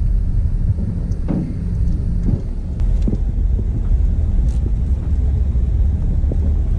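Low, steady rumble of a car rolling slowly at low speed, heard from inside the cabin, with a few short knocks along the way.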